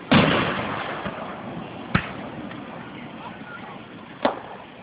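Fireworks shells bursting. A loud boom at the start trails off in a long rumble, then two sharp bangs follow about two seconds apart.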